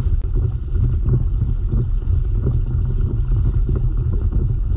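Steady low rumble of wind buffeting the camera microphone, mixed with water rushing past the hull of a Hobie Revolution 13 pedal kayak under way.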